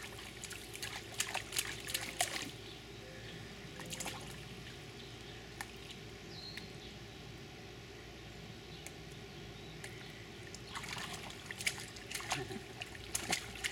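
Shallow water splashing in an inflatable paddling pool as a toddler slaps and paddles it with his hands and legs. It comes in two bouts, one about a second in and another near the end, with a quieter stretch between.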